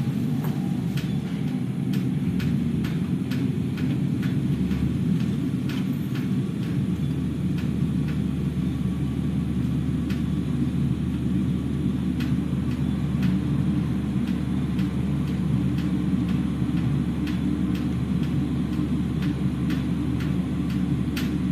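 A steady, low rumbling drone with no break, which the recorder likens to many aircraft flying low overhead though it stays in one place. Scattered ticks of rain dripping on a roof sound over it in the first several seconds.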